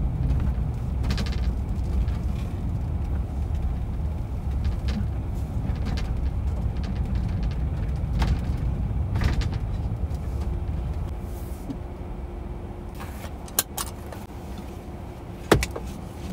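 A van's engine and tyres rumbling low and steady as it rolls slowly along a rough paved road. The rumble drops off over the last few seconds as the van slows to a stop, with two sharp clicks near the end.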